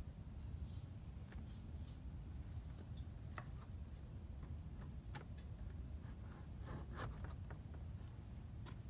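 Faint handling noises: scattered light clicks and rubbing as a perforated tray attachment is fitted onto the pipe of a 5-gallon bucket workbench, over a low steady rumble.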